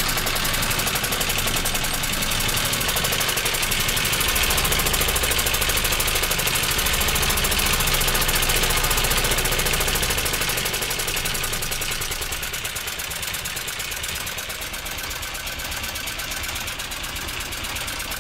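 Tobata 9 hp single-cylinder diesel engine running steadily at idle after a basic overhaul, with a fast, even knocking beat. It gets a little quieter in the second half.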